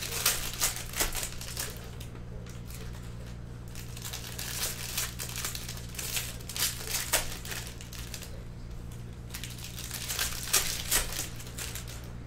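Foil wrappers of 2020 Bowman baseball card packs crinkling as they are handled and opened by hand, in three bouts of a couple of seconds each.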